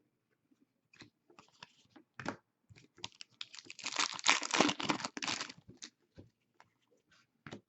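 Hockey trading cards being handled and flipped through: scattered light clicks and a short stretch of cards sliding against one another about halfway through.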